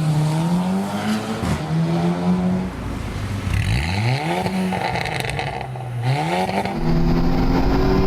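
Volkswagen Golf R's turbocharged four-cylinder engine heard from inside the car, its note rising and falling several times as it accelerates and changes gear. There are quick climbs in pitch around the middle, and it settles into a louder, steady run near the end.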